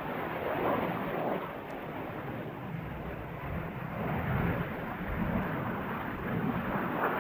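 BAE Hawk T1 jet's Adour turbofan heard from the ground as the jet flies a display manoeuvre: a steady, distant rumble without a clear tone.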